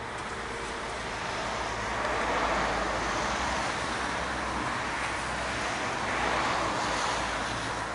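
Road traffic: a passing car's tyre-and-engine rush swells about two and a half seconds in, and another swells near the end.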